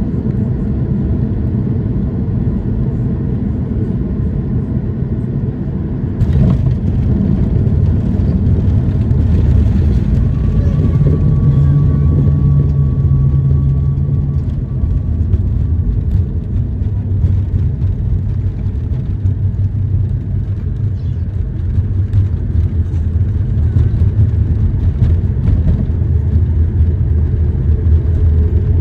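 Airliner cabin noise during landing: a steady low rumble on final approach, then about six seconds in a sudden, louder jolt as the wheels touch down. A heavier rumble follows as the plane rolls out on the runway with its spoilers raised, and a steady hum and whine rise above it for a few seconds shortly after touchdown.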